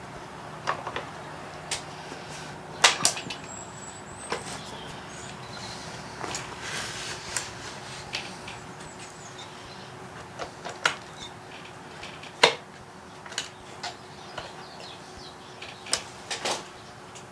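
Scattered clicks and knocks of a new Husqvarna 445 chainsaw's parts being handled and fitted together, with sharper knocks about three seconds in and again about twelve seconds in, and some rustling in between.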